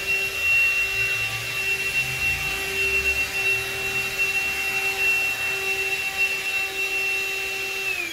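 Morphy Richards SuperVac 2-in-1 cordless vacuum cleaner running with a steady high-pitched whine, switched off near the end so the motor winds down, falling in pitch.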